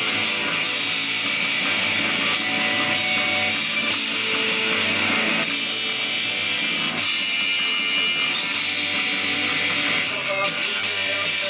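Rickenbacker 1998 electric guitar played through a Vox AC30 amp, strumming chords in a rock song, with sharper, choppier strokes near the end.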